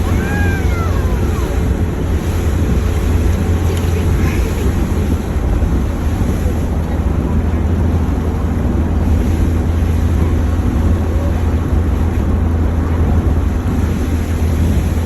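Steady low rumble of road and engine noise inside a moving vehicle, with a little wind noise on the microphone.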